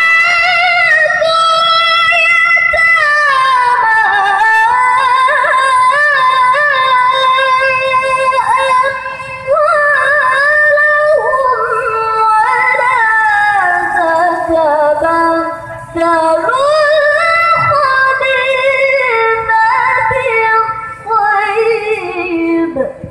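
A woman's voice chanting Quran recitation (tilawa) into a microphone, in long melodic phrases that glide and waver through ornamented turns, with short breaks about nine and sixteen seconds in.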